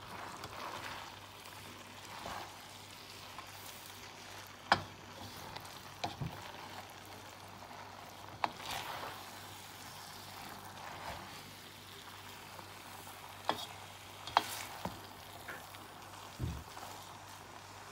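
Chicken, vegetables and egg noodles sizzling quietly in a frying pan as they are stirred, with a handful of sharp clicks of the utensil knocking against the pan.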